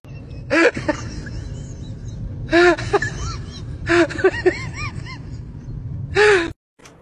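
Short, squeaky calls that rise and fall in pitch, about five of them with a quick cluster around four seconds in, over a low steady hum.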